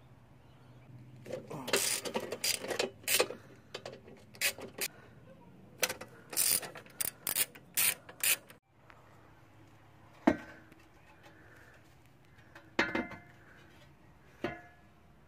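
Metal clicking and clattering from the steel slide rails and frame of a Smart ForTwo 450 car seat being worked by hand, in irregular bursts for several seconds, then three separate clunks further on.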